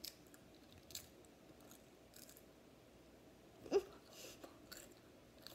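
Faint crunching and chewing of a small chip coated in hot sauce: a few scattered crisp crunches, with a brief louder mouth or throat noise about two-thirds of the way through.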